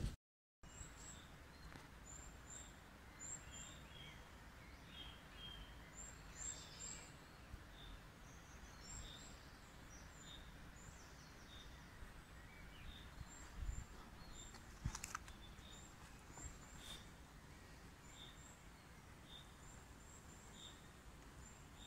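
Small woodland birds chirping: short, high calls repeating every second or so over a faint, steady background hiss, with a few faint knocks around the middle.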